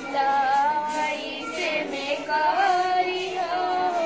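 A schoolgirl singing a traditional Bhojpuri folk song solo, drawing out long, gently wavering melodic notes.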